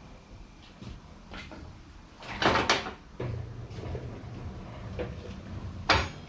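Steel stock being handled in the shop: a brief scraping rush a little past two seconds in, a few light knocks, then a sharp metallic clank near the end, over a steady low hum.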